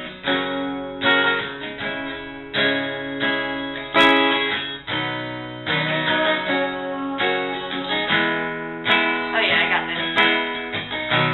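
Acoustic guitar strummed, a run of chords struck about once or twice a second, each ringing out before the next.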